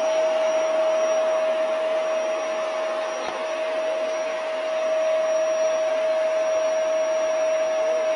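Steady whir of an electric appliance motor, with a constant mid-pitched tone running through it.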